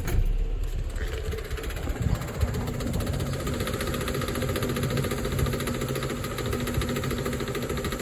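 Car engine idling steadily, with a fast, even ticking.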